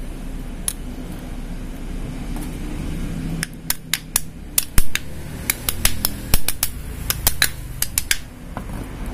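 Sharp metallic clicks and clinks, irregular and close together, from about three seconds in until near the end, as the Honda Supra X 125's centrifugal clutch shoe assembly and its springs are handled. A low steady hum runs underneath.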